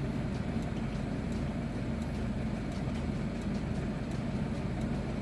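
Steady low rumble of vehicle traffic on a road, with a few faint ticks.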